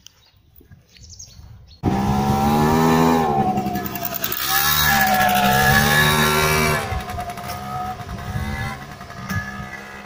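Moped engine running close by as it rides off, its pitch rising and falling with the throttle. It comes in suddenly about two seconds in and drops to a lower level about seven seconds in.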